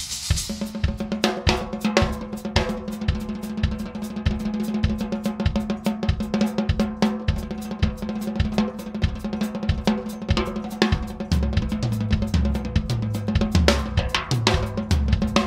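Acoustic drum kit with Zildjian cymbals played solo: rapid snare and bass drum strokes with hi-hat and rimshots, the low drums coming in more heavily in the last few seconds.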